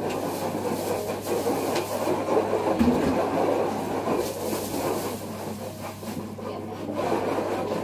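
Homemade glue slime being kneaded and squeezed in the hands close to the microphone: a continuous run of small squishing and crackling sounds. The slime is stiff and breaking apart rather than stretching.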